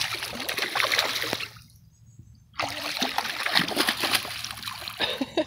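A hooked bass thrashing and splashing at the water's surface beside the boat as it is netted, in two bouts of splashing with a pause of about a second between them.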